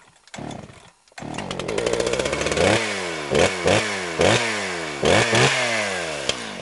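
Chainsaw pull-started: one short tug of the starter cord, then the engine catches about a second in and is revved in sharp throttle blips, the pitch climbing and then falling away after each, about six or seven times.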